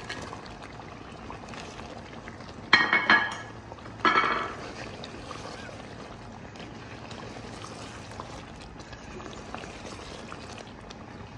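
Masala gravy simmering in a metal pot with a steady bubbling hiss as fried moong-dal badiyan are stirred in. About three seconds in, and again a second later, come two loud clattering scrapes of the spoon against the pot.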